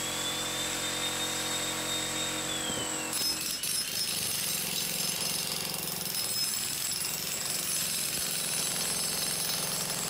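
Electric demolition hammer chiseling into a concrete wall, its hammering running steadily. About three seconds in, the sound changes to a rougher, noisier hammering that carries on.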